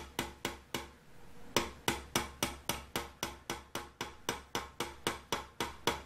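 Hammer tapping a small pin into the rear main bearing cap of a Ford 396 FE engine, driving it in to wedge the rear main seal tight. Quick, light, even taps about four a second, with a short pause about a second in.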